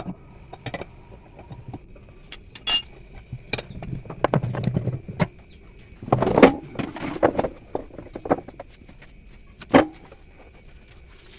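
Metal tools and parts clinking and knocking irregularly during hands-on work on a washing machine's bearings, with a scraping handling noise in between and one sharper knock near the end.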